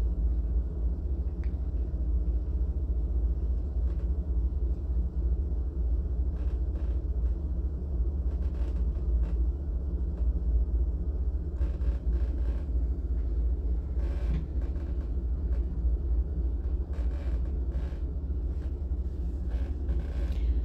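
Steady low rumble of distant ocean surf, with a few faint scattered clicks or rustles in the second half.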